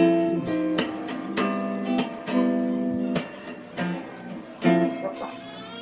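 Background music: plucked guitar chords with a steady beat.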